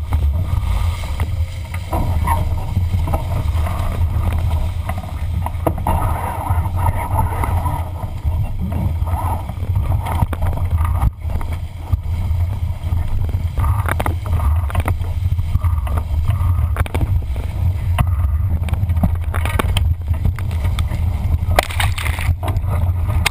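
Wind buffeting a boat-mounted camera's microphone over water rushing and splashing along the hull of an RS800 sailing dinghy moving fast in strong wind, with a louder burst of splashing near the end.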